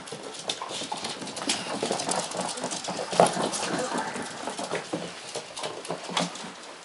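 Claws of eight-week-old Cardigan Welsh corgi puppies clicking and scrabbling on a hardwood floor as they run and play: a quick, irregular stream of small taps.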